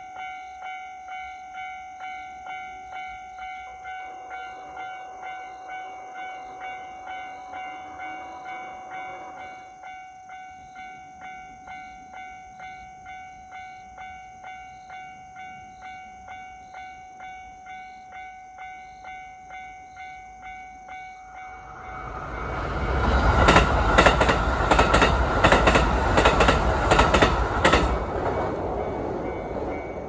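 Japanese level-crossing warning bell ringing steadily at about two strikes a second. About 22 seconds in, a Kintetsu electric train passes over the crossing, loud for several seconds with its wheels clacking over the rail joints, then fades away.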